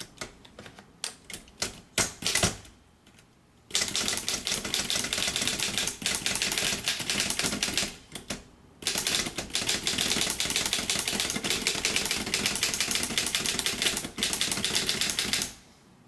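A 1938 Seidel & Naumann Erika typewriter being typed on. A few separate keystrokes at first, then two long runs of fast key strikes with a short pause between them.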